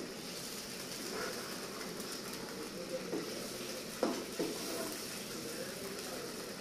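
Kofta curry sizzling and bubbling in a black iron kadai, a steady hiss. A steel slotted spoon stirs it and clinks against the pan a few times, loudest about four seconds in.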